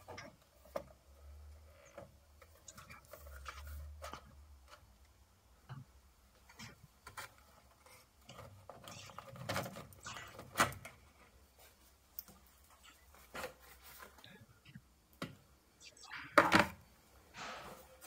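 Plastic casing of a Vokera Compact 25A boiler's control panel being handled and opened: scattered clicks, knocks and rubbing as the cover is taken off and the control box swung down, with sharper knocks about ten seconds in and near the end.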